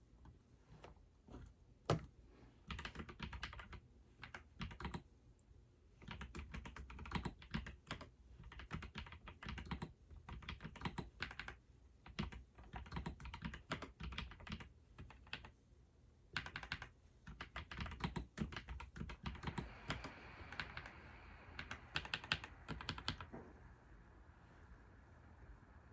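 Typing on a computer keyboard: rapid key clicks in uneven bursts, separated by short pauses.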